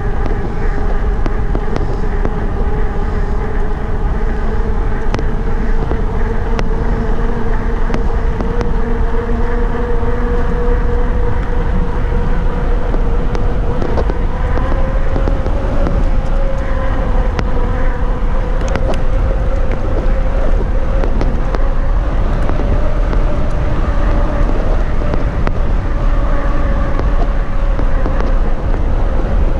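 Wind rushing over the microphone with a steady hum from a mountain bike's tyres rolling fast on pavement; the hum's pitch rises slightly about halfway through.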